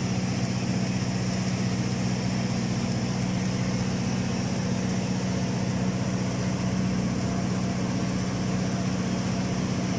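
Automatic girth welding machine running during submerged arc welding of a tank's horizontal seam: a steady electrical hum with a faint high hiss, unchanging throughout.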